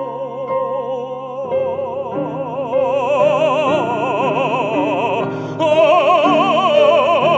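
Baritone singing a Chinese art song in operatic style, holding long notes with wide vibrato over accompaniment. The voice gets louder a little over halfway through.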